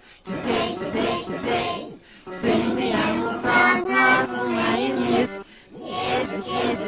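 Sung children's song with musical backing, voices singing in phrases with short breaks between them.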